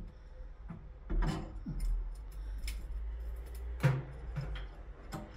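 Scattered light clicks and taps from work on a glass pane glued into a door frame, with a brief murmur of voice about a second in and again near four seconds.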